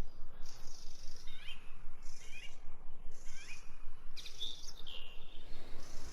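Birds calling: a short chirping call repeated three times about a second apart, with other higher bird calls over a steady background hiss.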